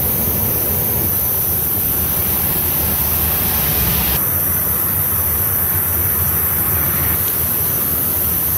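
Steady hissing noise with no clear event in it; its higher part falls away about four seconds in.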